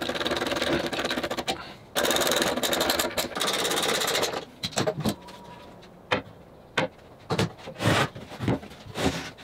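Cordless drill driving screws through a cabinet door's overlay hinge, the motor running in two stretches, the second louder, starting about two seconds in. Then a series of knocks and clunks as a bar clamp is taken off and the wooden cabinet is tipped over on the bench.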